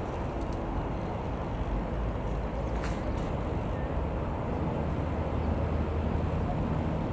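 Eurocopter AS355 F2 Ecureuil 2 twin-engine helicopter, heard as a steady low rumble, with a couple of faint ticks about three seconds in.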